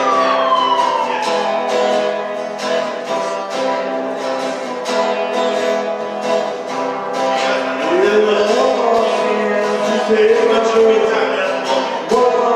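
Acoustic guitar strummed in a steady rhythm, a live solo song performance, with a voice starting to sing about eight seconds in.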